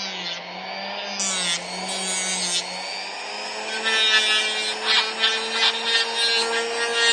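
Small electric bench power tool shaping wood: a steady motor note with a rough scraping of the cutting that gets louder about four seconds in.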